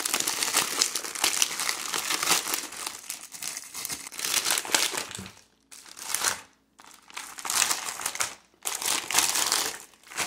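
Plastic MRE packaging crinkling as the ration's component pouches are handled and pulled out. There are about five seconds of continuous rustling, then short bursts of crinkling with brief quiet gaps between.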